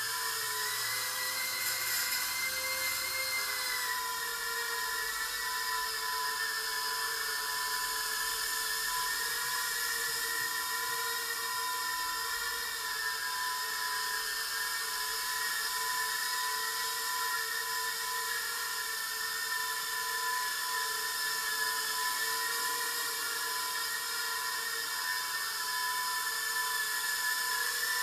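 Eachine Turbine QX70 micro FPV quadcopter in flight: a steady high-pitched whine from its tiny motors and propellers, wavering up and down in pitch, most noticeably in the first few seconds.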